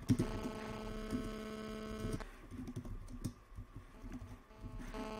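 Typing on a computer keyboard: irregular bursts of key clicks as a terminal command is entered. A steady electrical hum runs under it, drops out about two seconds in and comes back near the end.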